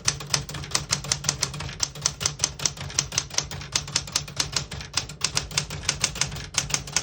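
1971 Smith-Corona Super Sterling manual portable typewriter being typed on at a steady pace, a rapid run of sharp typebar clacks striking the platen, here through the red half of the ribbon.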